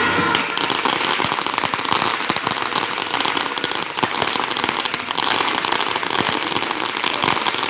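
A string of firecrackers going off in a rapid, continuous crackle of many small pops, starting about half a second in.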